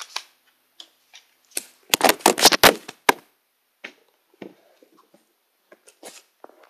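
The recording camera knocked over and clattering against the desk: a burst of close knocks and scraping on the microphone lasting about a second and a half, starting about a second and a half in, then scattered small taps and rustles as it is handled.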